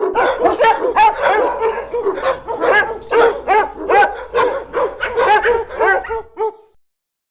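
A dog barking repeatedly, about two barks a second, then stopping shortly before the end.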